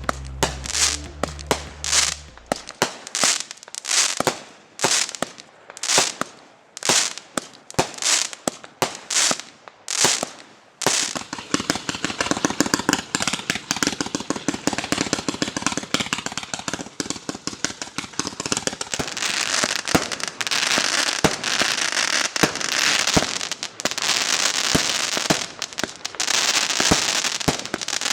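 Consumer fireworks going off: a run of sharp bangs at about one and a half a second for the first ten seconds or so, then dense crackling that turns into a thick, hissing crackle from about twenty seconds in.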